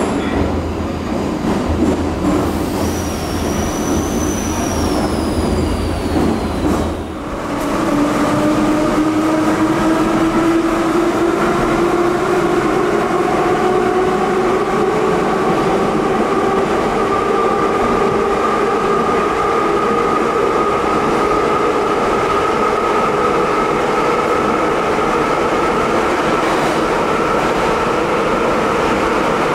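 Ezh3 metro car running on the rails, with a high wheel squeal gliding up and then down about three to six seconds in. After a short dip at about seven seconds, the traction-motor whine rises slowly and steadily in pitch as the train accelerates.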